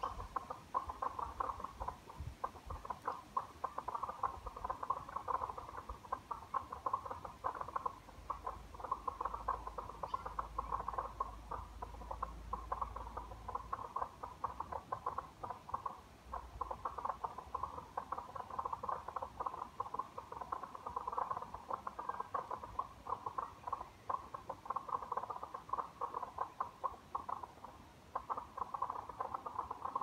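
A chorus of frogs calling without pause, a dense mass of rapid pulsing calls, easing off briefly a few times.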